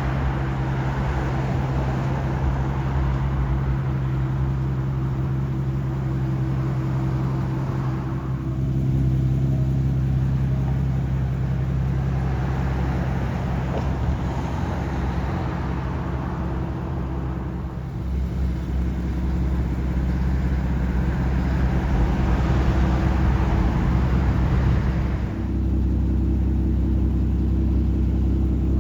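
Aston Martin DBS Volante's twin-turbo V12 engine running steadily with a low rumble. Its note shifts slightly a few times.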